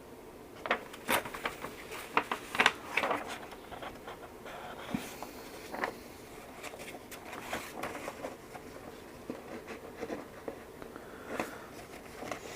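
Paper instruction booklet being handled and its pages turned: a run of crisp rustles and crackles, busiest in the first few seconds, then occasional softer ones.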